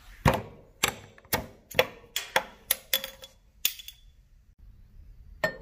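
A metal bar-style bottle opener clinks against a glass beer bottle and its crown cap as the cap is worked off. There are about eight sharp, slightly ringing taps at roughly two a second, then one more near the end.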